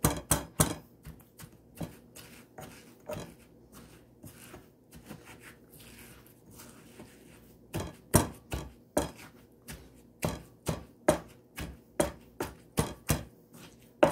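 Pestle pounding in a small mortar, crushing the ingredients for som tum (Thai green papaya salad) after sugar is added. Sharp knocks come in uneven runs, softer and sparser in the middle, then a steady beat of about two to three strikes a second in the second half.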